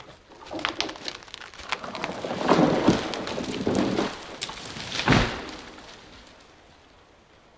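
A sawn tree falling: crackling and snapping as the trunk gives way, branches crashing through neighbouring branches for a few seconds, then a heavy thud as it hits the ground about five seconds in.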